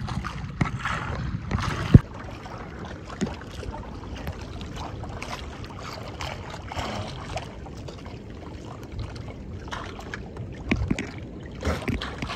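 Water lapping and gurgling against the hull of a small wooden outrigger canoe at sea, with one sharp knock about two seconds in and several more knocks and splashes near the end.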